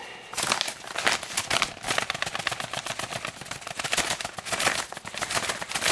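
Dense, irregular crackling and rustling of packing material being handled: styrofoam packing peanuts and crinkly plastic wrapping jostled by hands digging into a shipping box.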